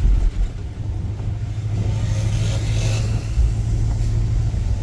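Car driving on a wet road, heard from inside the cabin: a steady low road and engine rumble, with a hiss that swells and fades about two seconds in.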